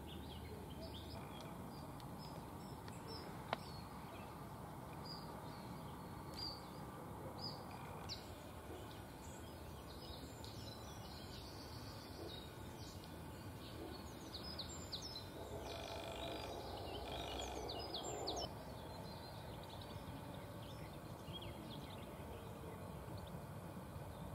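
Outdoor songbird ambience: many short, high chirps and calls from small birds over a steady low background noise. There is one sharp click about three and a half seconds in, and a louder, harsher sound for about three seconds past the middle.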